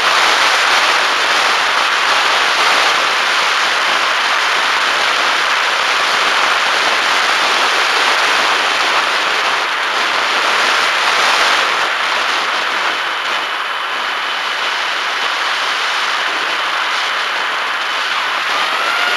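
Onboard sound of a Bixler 1.1 RC plane in flight: steady wind rush mixed with the drone of its electric pusher motor and propeller. A faint high motor whine comes in about halfway through.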